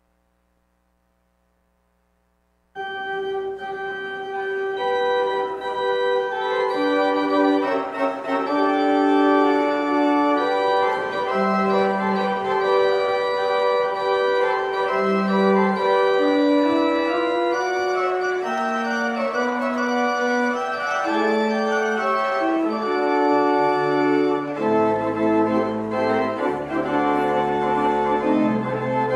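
Organ music with sustained chords under a slow melody, starting abruptly about three seconds in after near silence; lower bass notes join near the end.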